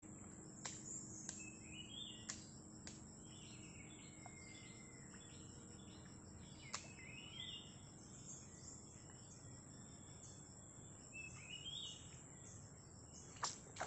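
Quiet streamside ambience: a steady high insect drone, with a bird calling a short rising phrase three times, about every five seconds, and a few faint sharp clicks.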